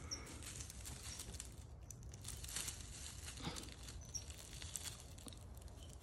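Faint scattered rustling and crackling of dry leaf litter and twigs.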